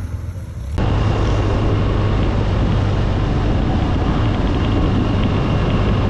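BMW 1200 boxer-twin motorcycle riding at road speed: a steady engine drone under heavy wind rush on the helmet or bike-mounted camera microphone, starting abruptly about a second in.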